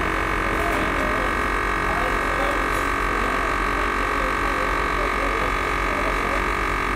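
Chamber vacuum sealer's pump running with a steady, even hum while it vacuum-seals a bag of snails.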